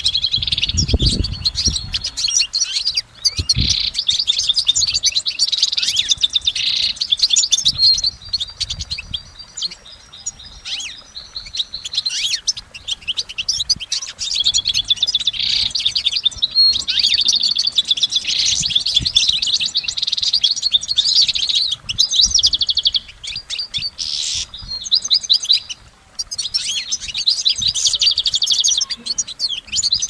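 European goldfinch singing: a long, rapid twittering song of trills and tinkling notes, broken by a couple of brief pauses.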